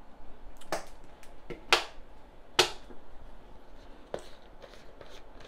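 Sharp clicks and taps of an emptied plastic oil bottle being handled after the oil has been poured into a stainless steel pot. The three loudest come about a second apart, with a couple of fainter ones later.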